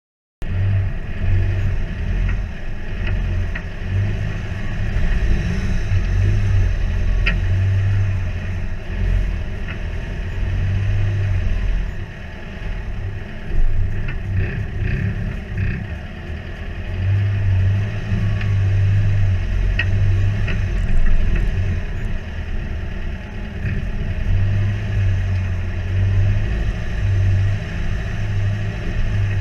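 Four-wheel-drive ute's engine pulling steadily in low range as it crawls up a rocky off-road climb, heard from a bonnet-mounted camera. The low rumble swells and eases with the throttle, and a few sharp clicks and clatters come from the rocks and the body.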